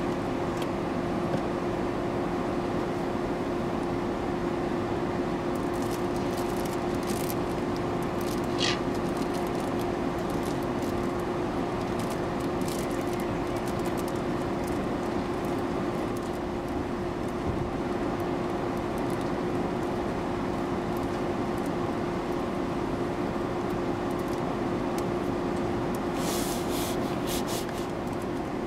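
A steady mechanical hum with a constant mid-pitched tone, unchanging throughout. A brief faint falling whistle comes about nine seconds in, and a few faint high clicks near the end.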